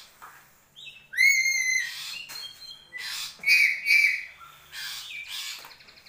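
Black-capped lory (Papuan black-capped parrot) calling: a loud, clear whistled call about a second in, then loud harsh squawks around three and a half and four seconds, with shorter screechy calls in between.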